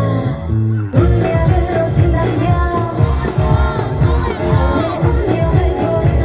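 K-pop dance track with a female lead vocal and a steady beat, played loud over speakers. About a second in, a muffled stretch with the treble cut out opens abruptly into the full mix.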